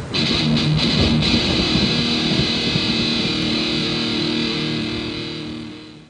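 Intro music on electric guitar: a few short chopped chords, then one chord left ringing as it slowly fades out.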